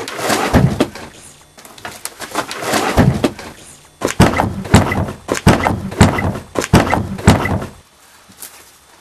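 Scuffling with knocks and thuds against the wooden boards and door of a shed, ending in a run of sharp knocks about two a second that stops near the end.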